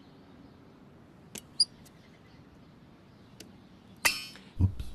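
Car rear-view mirror being twisted by hand, giving a short loud squeaky creak near the end followed by a low thud. Before that there are only a few faint ticks and one brief high squeak about a second and a half in.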